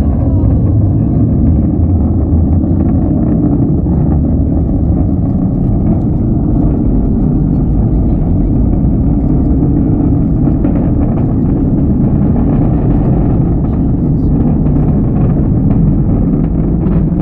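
Rumble of an Atlas V rocket's RD-180 first-stage engine heard from the ground as the rocket climbs away: a loud, steady, crackling roar, deepest and strongest in the low end.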